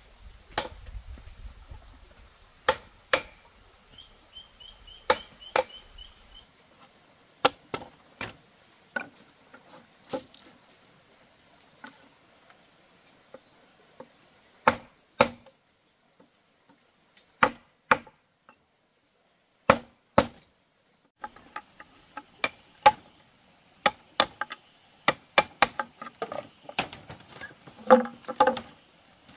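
Bamboo being chopped with a hand tool: irregular sharp strikes, single and in quick pairs with pauses between. Near the end the strikes come faster and lighter.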